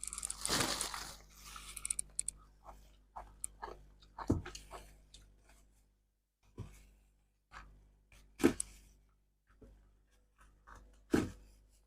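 Ice roses being bitten and chewed: a long crunch at the start, then scattered short crunches and clicks, with sharper bites about four, eight and a half and eleven seconds in.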